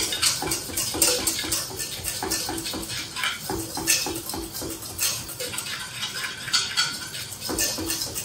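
Wire balloon whisk clinking and scraping against a stainless steel pan in quick repeated strokes, stirring a thin crème anglaise of milk, sugar and eggs as it heats.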